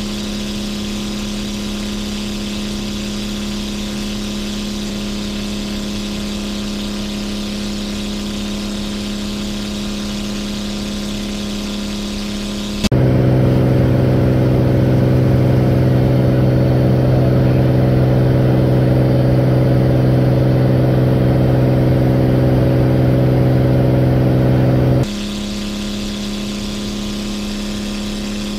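Titan T-51 Mustang's Suzuki V6 engine with short stack exhausts running steadily in cruise flight, a constant drone. About halfway through it cuts abruptly to the louder, deeper steady drone of the chase aircraft's engine heard from the aircraft filming the Mustang, which runs for about twelve seconds and then cuts straight back to the Mustang's drone.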